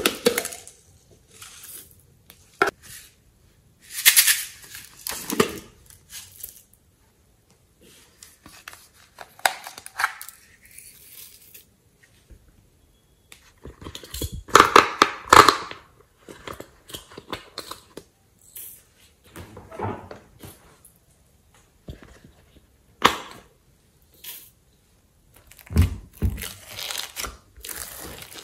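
Close-up handling sounds: a plastic squeeze bottle handled and squeezed, then a silicone pop-it fidget toy pressed, giving a run of quick popping clicks about halfway through. Near the end, slime squishes and crackles as it is worked by hand.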